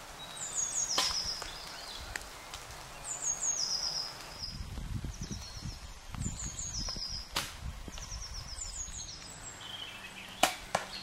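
A small songbird sings a repeated high phrase, a quick descending trill, five or six times. Sharp knocks from archery shots come about a second in, around seven seconds and, loudest, near the end, with a low rumble of movement in the middle.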